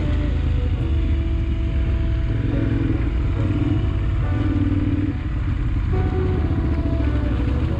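Twin-cylinder adventure motorcycle engine running under way on a dirt trail, its throttle rising and easing, with a brief drop in level about five seconds in.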